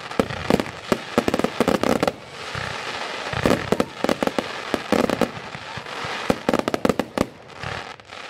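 Aerial fireworks going off in quick succession: many sharp bangs close together, with stretches of dense crackling hiss between the volleys.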